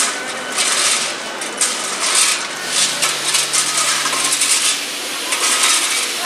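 Repeated gritty scraping and crunching, about once or twice a second: track workers shovelling and raking railway ballast stones.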